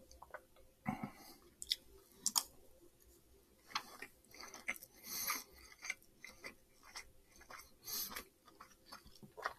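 A person chewing a big mouthful of fried rice close to the microphone: soft, irregular wet chewing and small mouth clicks.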